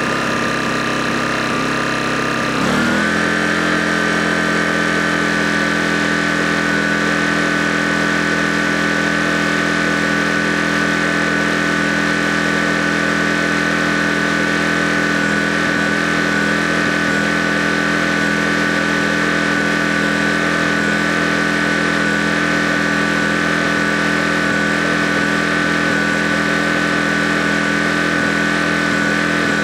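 Shindaiwa iEG900M-Y inverter generator's engine running steadily. About three seconds in, its speed steps up, and it holds a slightly higher, even pitch from then on.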